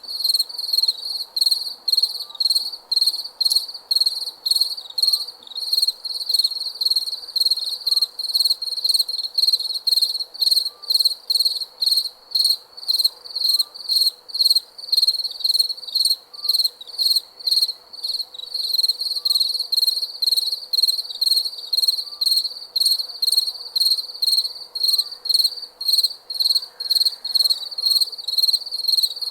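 Crickets chirping at night: a steady high-pitched chirring, broken into evenly repeating pulses about twice a second.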